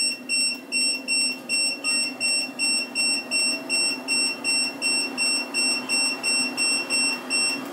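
Elseluck walking pad treadmill beeping rapidly as its speed is stepped up from the remote, about three short high-pitched beeps a second, over the steady hum of its running motor.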